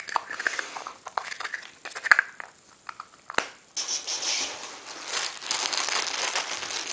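Handling clicks and knocks as a plastic slime jar is closed and put down, with one sharp click about two seconds in. From about halfway, clear plastic wrapping crinkles steadily as a packaged item is handled.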